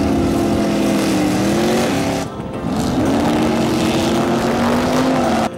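Muscle car's engine at full throttle accelerating down a drag strip. The engine note holds high, dips about two seconds in, then rises again and holds before cutting off suddenly near the end.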